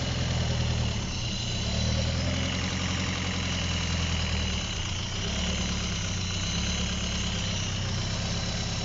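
Freshly rebuilt Opel Corsa B GSi engine idling as it warms up, loud through an incomplete exhaust. The idle note shifts slightly about a second in and again near the middle.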